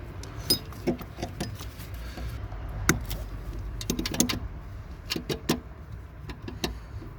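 Hand tools clicking and clinking against metal in irregular sharp knocks, the loudest about three seconds in, as locking pliers work the upper shock shaft nut of a rear shock absorber, over a steady low rumble.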